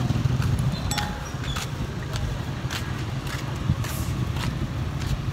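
Busy street traffic: a steady low engine rumble from motorcycles and motorized tricycles, with scattered short clicks and knocks.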